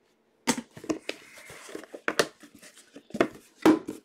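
A blade slitting the seal tape on a cardboard trading-card hobby box, then the box being handled and its lid opened: scraping with several sharp taps and knocks, the loudest about two seconds in and near the end.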